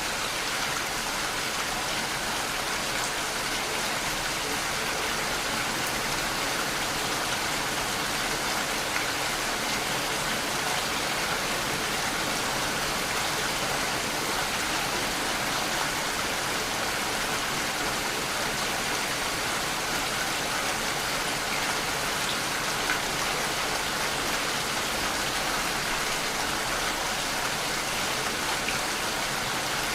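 Steady rainfall: an even wash of rain, with faint drop ticks here and there.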